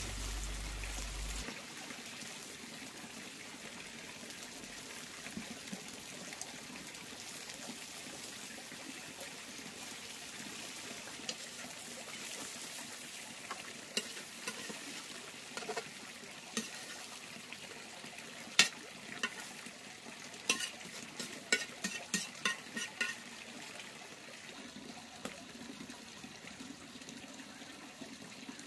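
Beaten eggs with green onions sizzling in hot oil in a wok, a steady hiss. About two-thirds of the way through comes a run of sharp clicks and knocks.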